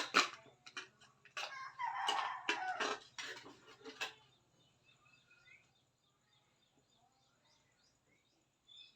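A run of sharp clicks and rustling handling noise over about four seconds, then only a faint low hum with an occasional small tick.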